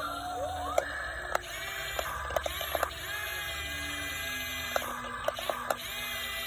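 Small electric motors of an RC excavator whining: the pitch rises as a motor spins up, then holds steady for a few seconds at a time. Light clicks and knocks are scattered through it.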